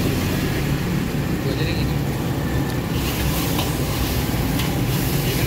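Metal spatula scraping and tapping in a steel wok as egg is stirred and fried, a few short clinks, over a steady low rumble.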